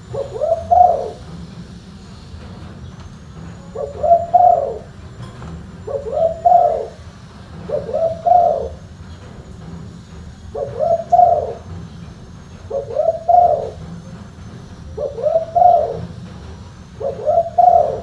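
Spotted dove cooing: a short, deep, multi-note coo phrase repeated about every two seconds, eight phrases in all.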